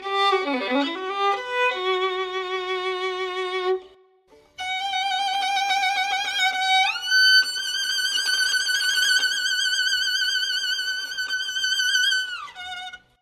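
Solo violin playing slow held notes with vibrato. Near the start it swoops down and back up, it pauses briefly about four seconds in, and it climbs to a long, high note that stops just before the end.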